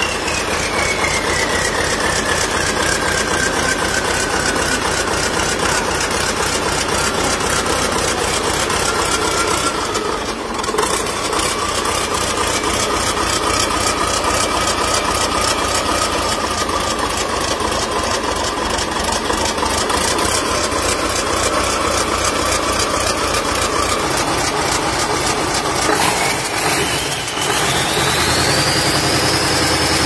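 Iveco Turbostar V8 turbodiesel engine, out of the truck on a workshop test stand, running at idle. A high whine in its sound sinks over the first few seconds, holds steady, then climbs steeply about 26 seconds in.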